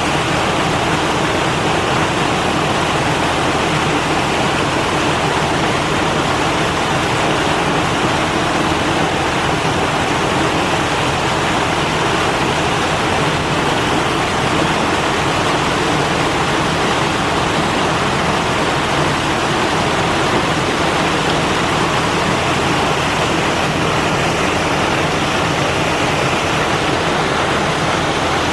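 Steady rush of running water, even and unbroken, with no distinct splashes or calls standing out.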